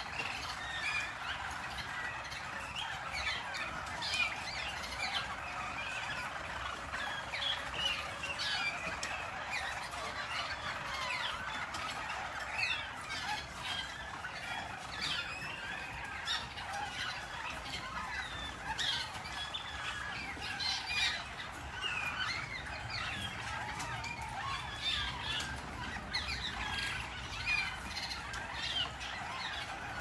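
Several Harzer Roller (German Roller) canaries singing at once, a dense, overlapping chorus of rolling trills and short chirps that keeps on without a break.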